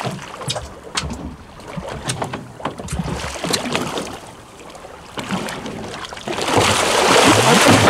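Scattered knocks and clatter on a fishing boat as the crew work at a large shark alongside, then from about six seconds in a loud, steady rushing noise.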